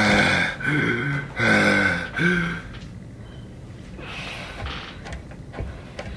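A person's voice making four loud, drawn-out vocal sounds with wavering pitch over the first two and a half seconds, then much quieter with a few faint clicks.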